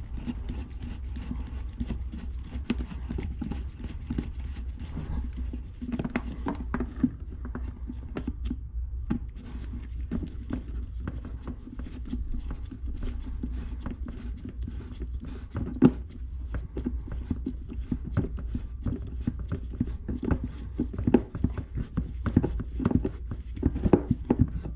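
Hand tools clicking and knocking on metal as the carburetor's intake clamp is tightened, the clicks coming faster near the end.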